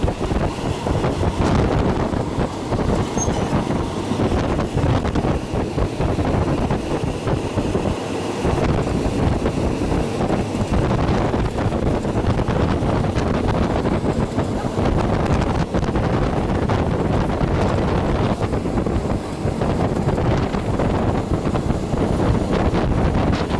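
Passenger train running at speed, heard through an open carriage window: a steady, loud rumble of wheels on rails, with many small clicks and knocks throughout.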